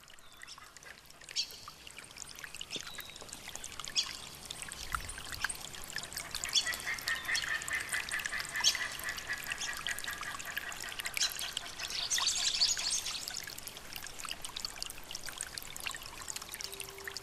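Recorded nature sounds opening an instrumental New Age track: water splashing and trickling, with bird calls, a held call in the middle. A soft sustained instrument tone enters at the very end.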